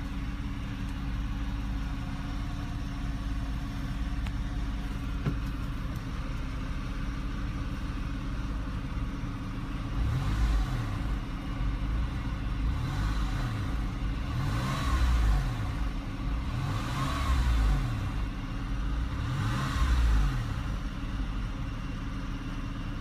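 Porsche 996 flat-six engine idling steadily, then revved in several short blips from about ten seconds in, each rising and falling, toward about 2,000 RPM for an oil pressure check that shows good pressure.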